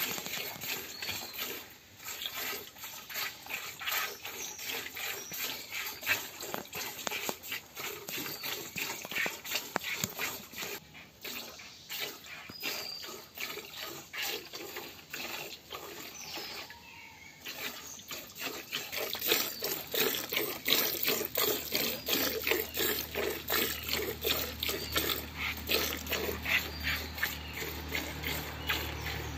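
Milk squirting from a cow's teats into a plastic bucket during hand milking, in a quick, even rhythm of streams. The strokes get louder and more regular about two-thirds of the way through.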